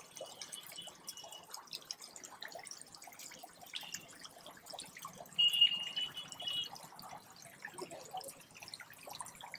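Small electric fountain pump's jet spraying up and falling back into a water tank: a faint, fine patter of splashing drops. A thin, steady high tone sounds briefly at the start and again for about a second just past the middle, the loudest thing heard.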